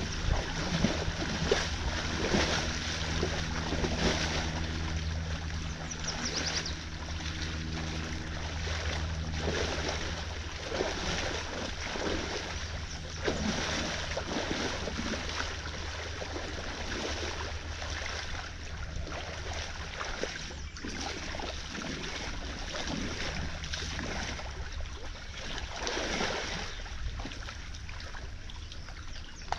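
Creek water rushing and splashing through a breached beaver dam, with irregular splashes throughout. A low steady hum fades out about a third of the way in.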